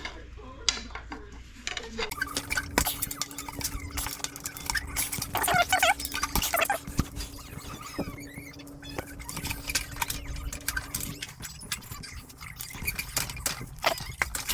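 Irregular metallic clinks, knocks and scrapes of hand tools and parts as a stuck internal part is worked loose from a 4L60 automatic transmission case, with a steady hum underneath for much of the time.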